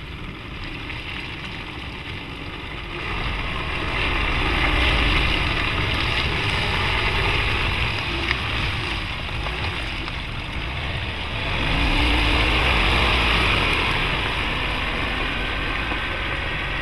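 Nissan Navara NP300's 2.3-litre four-cylinder turbodiesel pulling the pickup off-road, with tyres working through mud and shallow water. The engine and splash noise swell louder about four seconds in and again about twelve seconds in.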